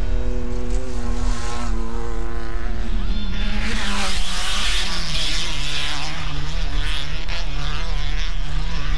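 Off-road race vehicle's engine running hard at speed and passing close by. Its pitch drops as it goes past about three and a half seconds in, with a rush of noise at the pass, and the engine goes on at the lower pitch as it pulls away.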